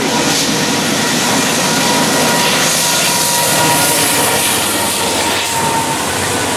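Freight train led by a GE AC44CW diesel-electric locomotive passing close at speed, a steady loud rumble of engines and wheels on the rails. A thin steady whine rides over it and fades out about six seconds in.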